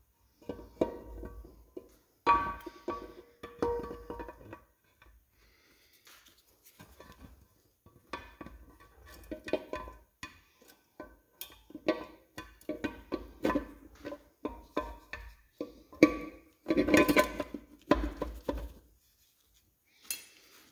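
Irregular clinks and knocks from the halves of a magnesium NP263XHD transfer case being handled and pushed together, with short ringing metal notes and a louder run of knocks near the end. The halves are not seating because an alignment dowel pin has pushed out.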